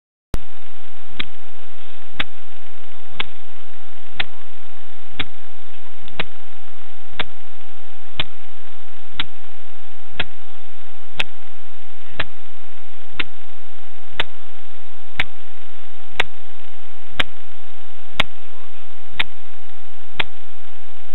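Camera watch recording itself: sharp clicks exactly once a second over a steady loud hiss with a constant faint tone and hum, the device's own ticking and noise.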